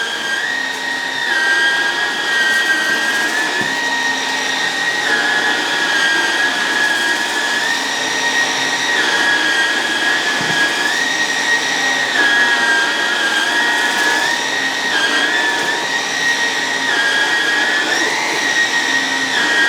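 Hoover Emerge Pet cordless stick vacuum running on high power over a rug, a steady high whine whose pitch dips slightly and recovers every couple of seconds.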